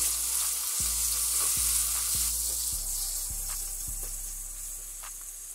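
Chopped onions with ginger-garlic paste sizzling in oil in a stainless steel pan, being fried to cook off the raw taste of the paste. A wooden spatula stirs them in regular strokes, nearly two a second. The sizzle grows fainter after about two seconds.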